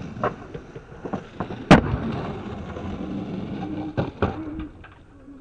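Skateboard wheels rolling on concrete, with several sharp clacks of the board; the loudest comes a little under two seconds in, and two more follow around four seconds in.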